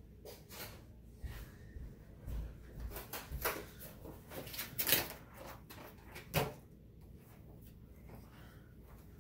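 A series of off-camera knocks and thumps from someone moving about and rummaging elsewhere in the house, with a louder bang about five seconds in and another about a second and a half later, then only faint room noise.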